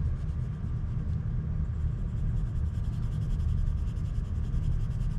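Coloured pencil scratching on paper in quick back-and-forth shading strokes, pressed down hard to lay in solid colour, over a steady low rumble.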